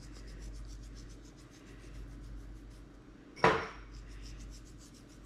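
Salt being dispensed over raw pork chops while seasoning: a run of light, even clicks, about six a second. A sharp knock comes a little past three seconds in, then the clicks resume.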